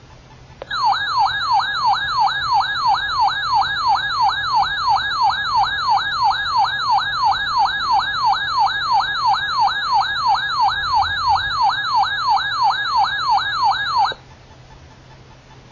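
Emergency Alert System attention tone: a loud, siren-like electronic tone warbling rapidly up and down, about three sweeps a second. It starts abruptly about a second in and cuts off suddenly near the end, ahead of the spoken warning.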